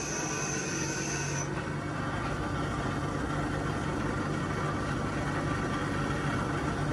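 Milling machine running steadily with a low hum. Its rotating cutter head is working the end of a hydraulic breaker chisel. A thin high whine cuts off about a second and a half in.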